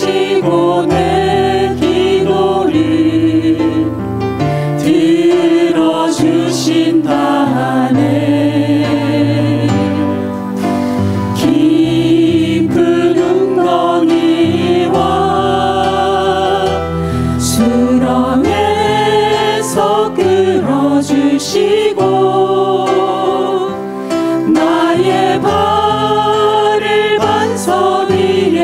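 Church praise team singing a worship song with microphones over a live band of drums and keyboard.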